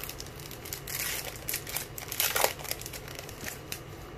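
Foil wrapper of a Topps baseball card pack being torn open and crinkled by hand, in a run of crackling rustles that are loudest a little past the middle.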